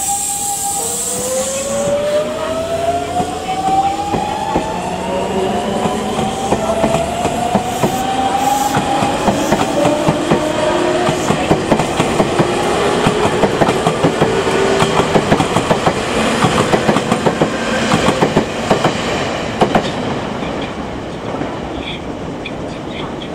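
Nankai 1000 series electric train pulling out and speeding up. Its VVVF inverter and traction motors give a whine in several tones that climb steadily in pitch, and the wheels clack over rail joints faster and faster. The sound fades as the last cars pass, about twenty seconds in.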